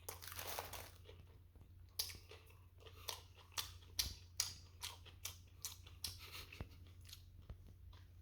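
Faint close-up chewing of a crusty banh mi sandwich: an irregular run of short crunches and mouth clicks.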